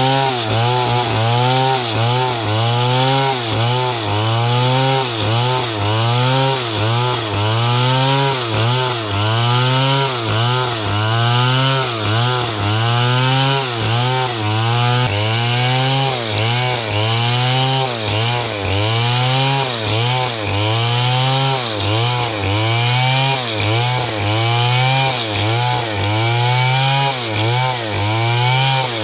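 Stihl two-stroke chainsaw running hard and sawing wood, its engine pitch dipping and recovering in a steady rhythm a little more than once a second as the chain bites and frees.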